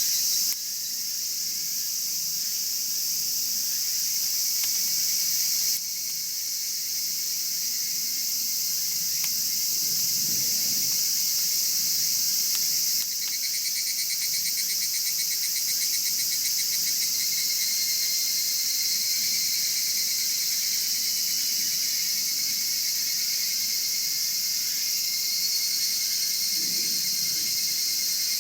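A steady chorus of insects, crickets among them, trilling in a dense, high-pitched wash, with a few faster pulsing trills layered on top.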